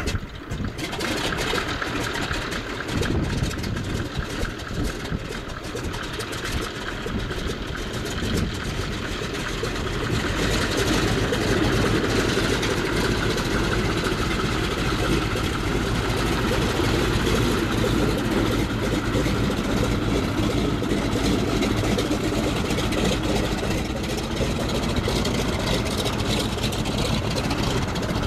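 A de Havilland Beaver floatplane's radial engine running as the plane taxis on the water, getting louder about ten seconds in and then holding steady.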